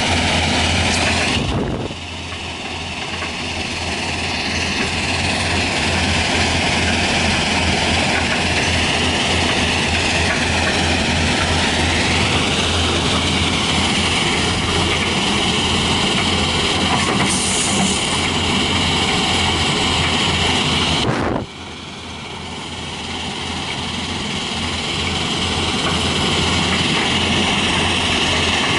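Heavy diesel machinery running steadily: a Tata Hitachi 200 excavator working beside a tracked gravel screening plant. The sound drops sharply about two seconds in and again about twenty-one seconds in, building back up over a few seconds each time.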